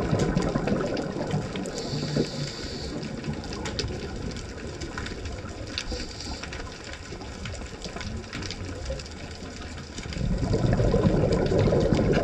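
Scuba regulator breathing heard underwater: a low rush of exhaled bubbles at the start and again from about ten seconds in, with short hisses of inhalation about two seconds in and near six seconds, over scattered faint clicks.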